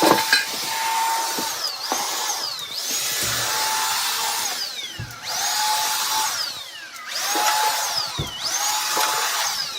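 Shark VacMop Pro cordless vacuum mop vacuuming a floor: its motor runs with a high whine over a steady rush of air, the whine dipping in pitch and recovering about every two to three seconds.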